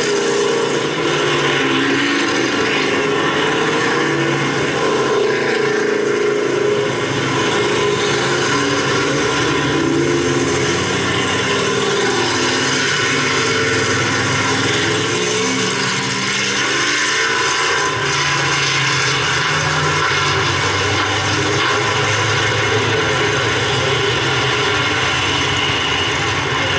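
Stock car engines running and revving up and down, several at once, their pitches rising and falling over each other.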